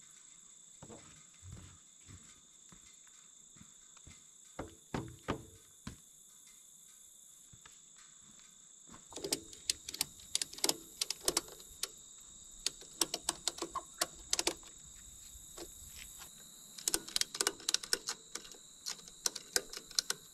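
Ratchet tie-down strap being worked tight: a few scattered knocks, then several runs of quick sharp clicks, the densest in the second half. A steady high insect chirring runs behind.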